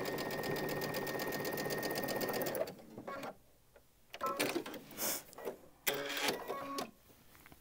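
Baby Lock Destiny sewing machine stitching a seam through two layers of quilting cotton at a fast, steady pace with a thin motor whine. It stops about two and a half seconds in, followed by a few short clicks and handling sounds.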